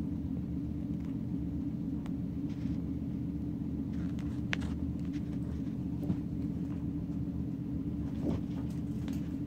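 Steady low background hum, with a few faint light clicks and scuffs over it.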